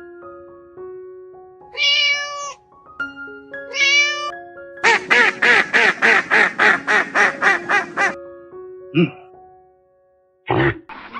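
Animal calls over a simple plucked background melody: two short wavering calls, then a quick run of about a dozen calls at roughly four a second, and a couple of brief calls near the end.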